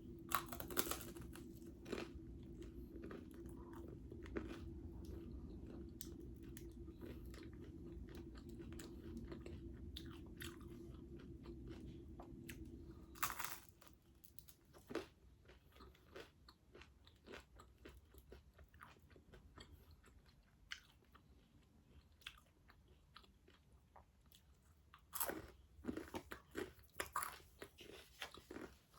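Close-up chewing and crunching of whole wheat sourdough toast with grape jelly, with scattered bites and small mouth clicks, a few louder ones near the end. A steady low hum runs underneath and cuts off about halfway through.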